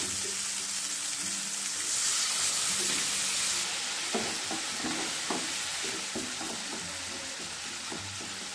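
Onion-tomato masala sizzling in a hot non-stick pan as a little water goes in, the hiss flaring louder about two seconds in. From about four seconds a wooden spatula stirs and scrapes through it in short strokes.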